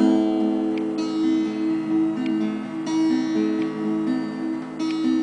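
Acoustic guitar playing a slow ballad intro, chords sounded about once a second and left to ring.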